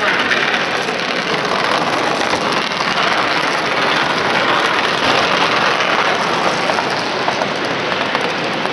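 Steady, dense rushing noise of a large-scale model steam locomotive and its coaches running past on the track, mixed with the general noise of the exhibition hall.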